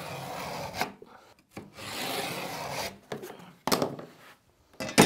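Handheld scoring tool dragged hard along a metal straight edge across a 12 mm cement board, two long scraping strokes cutting the score line. Short sharp clicks come between the strokes, and a louder sharp knock comes near the end.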